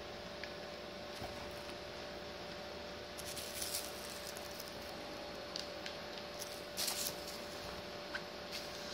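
Soft scuffling of a kitten pawing at a toy on a fabric sofa, with a few brief scratchy rustles about three and a half and seven seconds in, over a steady faint hum.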